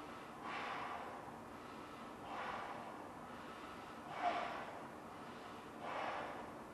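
A person blowing up a large latex balloon by mouth. Four heavy breaths come at about one every two seconds, and the one about four seconds in is the loudest.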